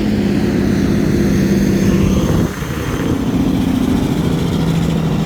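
Motor vehicle passing close by on the road, its engine loud and steady. About two and a half seconds in the engine pitch drops as it goes past.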